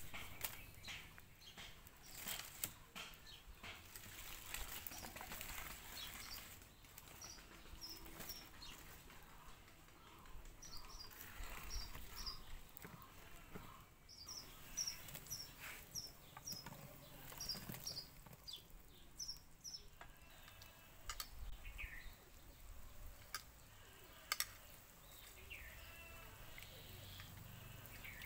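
Dry sticks and bark being handled and fed into a wood fire in a clay hearth, giving scattered faint clicks and snaps. Birds chirp in the background in short runs of high notes.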